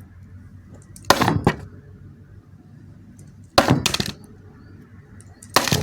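Three short clattering noises of small hard objects being handled, about two seconds apart.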